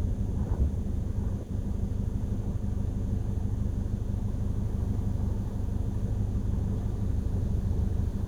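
Typhoon wind buffeting the microphone: a steady low rumble with small irregular gusts.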